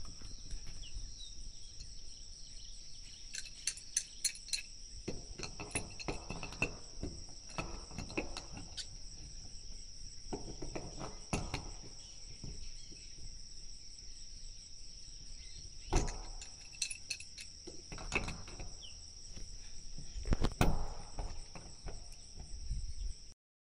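Steady high-pitched chorus of insects, crickets by its sound. Scattered knocks and clatter of handling sound over it now and then, the sharpest about two-thirds of the way through.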